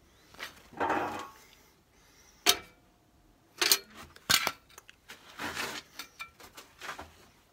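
Metallic clinks and clatter: a few sharp knocks amid scraping and rustling, like metal objects being handled and set down.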